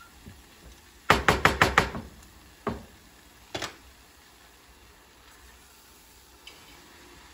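A quick run of about six sharp metal knocks, then two single knocks: a metal buñuelo mold (rosette iron) being knocked and shaken against the pot to work the fritter loose into the frying oil.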